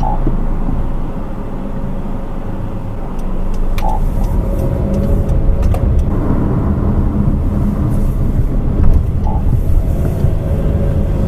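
Road and drivetrain rumble of a 2013 Honda CR-V AWD on the move, heard inside the cabin from a recorder at the rear wheel over the rear differential. It gets somewhat louder about three seconds in, with a few faint ticks.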